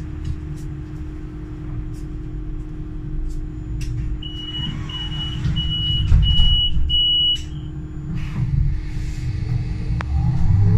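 Solaris Urbino 12 Hydrogen fuel-cell bus standing with a steady hum and low rumble. About four seconds in, a warning beeper sounds five short high beeps, typical of the doors closing. Just before the end, the electric drive's whine begins to rise as the bus starts to move off.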